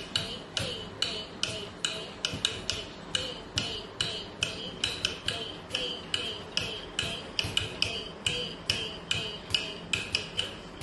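Bare feet striking a tiled floor in regular time in Bharatanatyam thattadavu footwork, over a steady time-keeping beat, about two to three strikes a second.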